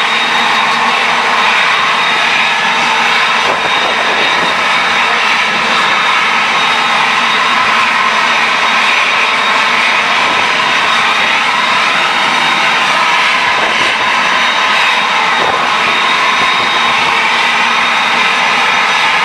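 Jet airliners' turbofan engines running at taxi power: a steady, even jet noise with a constant high whine held on one pitch.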